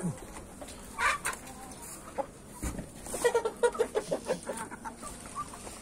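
Game chickens clucking: a short call about a second in, then a quick run of clucks from about three seconds in.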